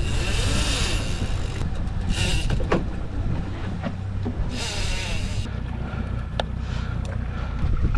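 Outboard motor running steadily, with rushing hiss that swells three times and a few sharp knocks.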